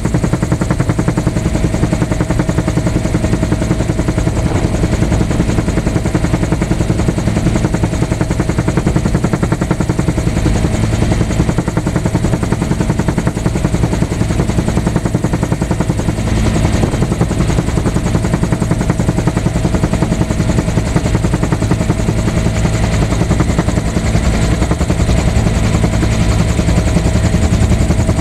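Helicopter engine and rotor noise heard from inside the cabin in flight: a loud, steady drone with a fast rotor beat underneath.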